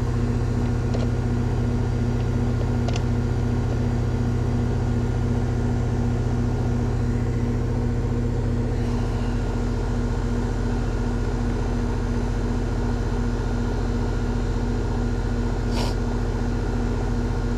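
Goodman heat pump outdoor unit running with a steady machine hum, with a few faint clicks.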